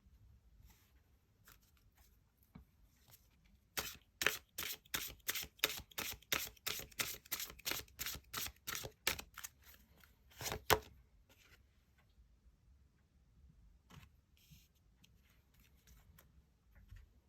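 Tarot cards being handled and shuffled by hand: a run of about twenty quick, sharp card snaps at about three a second, starting about four seconds in and stopping near the eleventh second, with faint sliding rubs of cards before and after.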